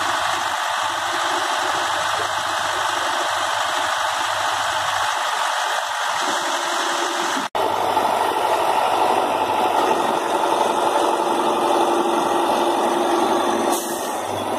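Hyundai EX70 crawler excavator's diesel engine running under load as the machine climbs onto a truck. The sound breaks off for an instant about seven and a half seconds in and comes back louder.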